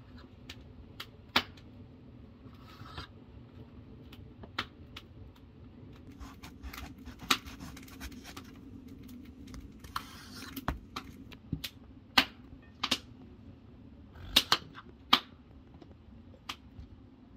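A knife slicing an eggplant lengthwise on a wooden cutting board. The blade taps the board sharply and irregularly, about a dozen times, with a few short scrapes as it draws through the flesh.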